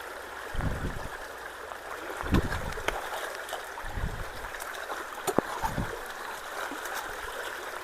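Water rushing steadily through a partly clogged culvert, with four short low thumps spread through it.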